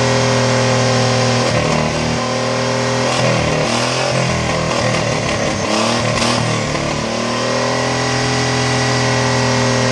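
Chevrolet 4.3 V6 with a homemade turbo setup running at a steady speed, revved up and down unevenly for several seconds in the middle, then settling back to a steady speed.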